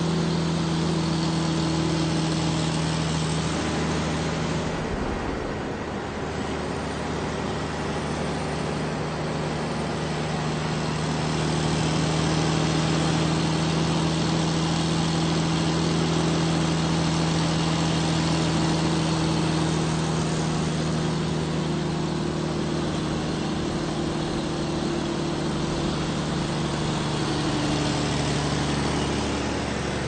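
Large truck's engine running with a steady low drone over road noise. The pitch steps down slightly a few seconds in, and the drone cuts off near the end.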